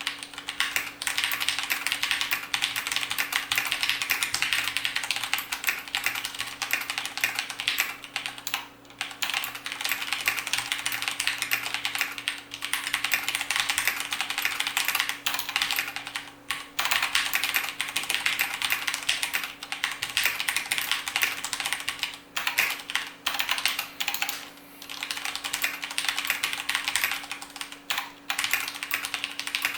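Fast continuous typing on a mechanical keyboard with tactile switches: a dense stream of key clicks and clacks, with a few short pauses between bursts. A faint steady low hum runs underneath.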